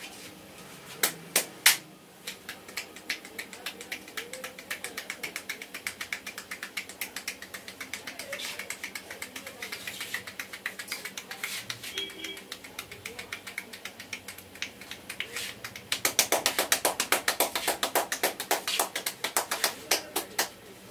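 Barber's hands tapping rapidly on a head during an Indian head massage, a long run of quick, even percussive strokes. Three louder single strikes come about a second in, and the tapping turns louder near the end before it stops.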